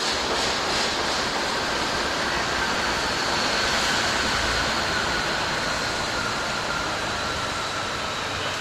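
Steady rushing noise of a rail vehicle running on the track, with a faint high whine that slowly drops in pitch.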